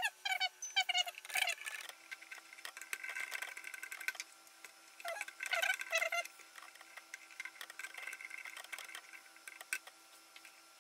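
Faint short squeaks and light clicks from a small screwdriver fastening red and black wires into a circuit board's screw terminal, in two clusters near the start and about halfway through. A faint steady hum sits underneath from about two seconds in.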